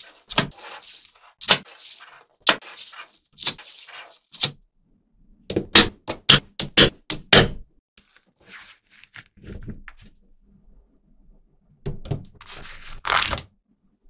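Small magnetic balls clicking together as slabs of them snap onto a block: a sharp click about once a second, then a quick run of louder clicks. Scraping and a rattling clatter follow near the end as the balls rub and settle into place.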